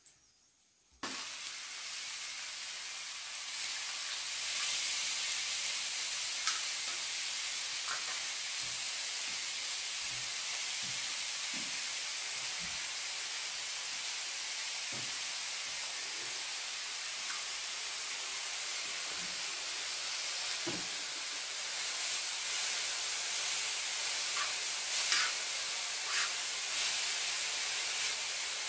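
Chopped green herbs sizzling as they fry in a hot pan, starting suddenly about a second in when they hit the metal and hissing steadily, with occasional clicks and scrapes of a spoon stirring them.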